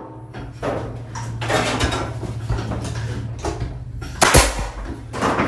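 Pneumatic nail gun firing once, a sharp shot about four seconds in, driving a nail through a wooden furring strip into the wall's top plate. Before it come softer knocks and rustling, over a steady low hum.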